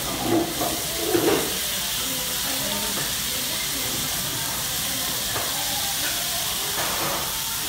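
Beef slices and garlic sizzling steadily on a hot Korean barbecue grill plate, an even frying hiss. There are a couple of brief louder sounds in the first second and a half.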